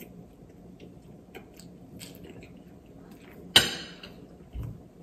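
Quiet chewing and small mouth clicks while eating pasta, then a sharp clink of a metal fork against the plate about three and a half seconds in, followed a second later by a soft low thump.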